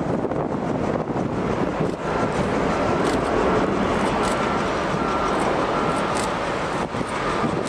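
Boeing 787 airliner's jet engines on final approach: a steady rumble and hiss mixed with wind buffeting the microphone, and a faint high whine that comes and goes in the middle.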